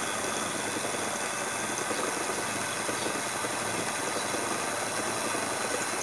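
Small electric motor of a homemade wooden line-winding machine running steadily, spinning a small spool as it winds kite line onto it.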